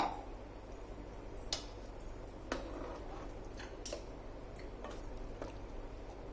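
Chicken curry gravy simmering in a cooking pot, with a metal utensil clicking against the pot about six times over a steady low hum.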